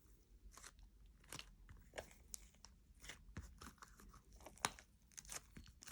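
Faint, irregular sticky crackles and clicks of Model Magic air-dry clay being kneaded by hand with lotion, a few a second, one louder snap near the end.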